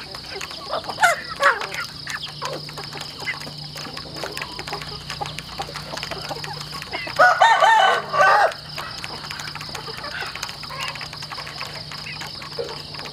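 A flock of chickens feeding from a plastic trough: many quick pecking clicks and scattered short clucks, with one rooster crow, the loudest sound, lasting a little over a second a little past the middle.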